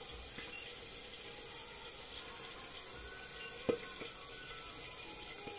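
Pangasius fish pieces frying in hot oil in a covered pan on a gas stove: a steady sizzle, with one sharp click a little past halfway.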